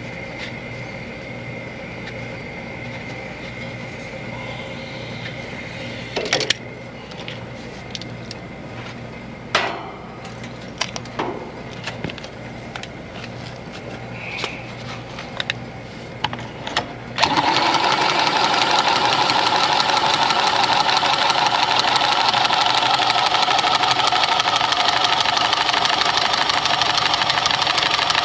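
A few scattered clanks and taps of hands and tools on the old condenser's copper piping, then, about 17 seconds in, a Milwaukee cordless one-handed reciprocating saw starts and runs steadily and loudly, cutting through the copper refrigerant line.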